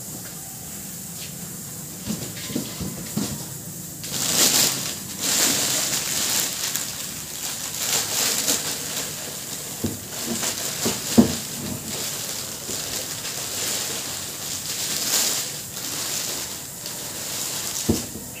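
Packaging being handled while an amplifier is unboxed: bursts of rustling with a few short knocks, the loudest knock about eleven seconds in.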